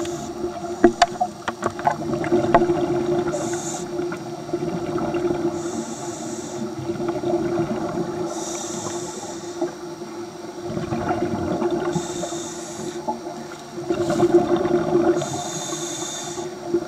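A scuba diver breathing through a regulator, heard underwater: short hisses every few seconds with rough bubbling noise between them, over a steady low hum.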